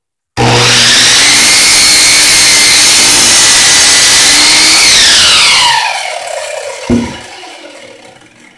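Power miter saw starting up and running at full speed through a 2x4 crosscut. About five seconds in the motor is let go and spins down with a falling whine. A single knock comes near seven seconds.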